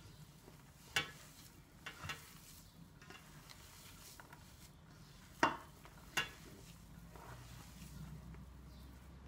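Hands kneading and squeezing moist lentil and bulgur köfte mixture in a stainless steel bowl: faint squishing with several sharp clicks, the loudest about five and a half seconds in.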